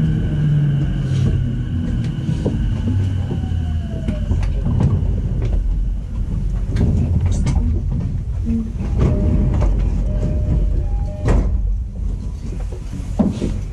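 Running noise inside an E233-series electric train's motor car as it slows: the traction inverter and motor whine falls in pitch over the first few seconds under braking, over a steady low rumble. Scattered clicks and knocks follow in the second half.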